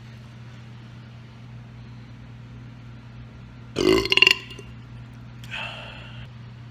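A person's loud belch with a rapid pulsing through it, about four seconds in and lasting about half a second, followed a second later by a fainter, shorter sound. A steady low hum underneath.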